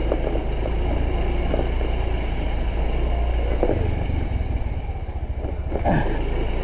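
Small motor scooter engine running at low speed, a steady low drone heard from the rider's seat, its note shifting slightly about four seconds in.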